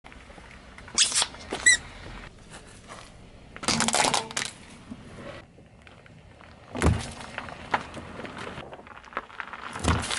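A car tyre rolling over and crushing objects on asphalt: a rubber toy gives a short squeak about two seconds in, among loud crunches and thumps about one, four, seven and ten seconds in. The last thump is a juice carton bursting under the tyre.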